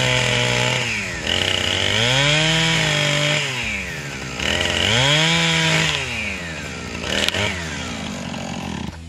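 Two-stroke gasoline chainsaw cutting through a log: the engine is held at full throttle for a second or two at a time, about three times, dropping back toward idle between each, with one short blip of throttle near the end before it settles to idle.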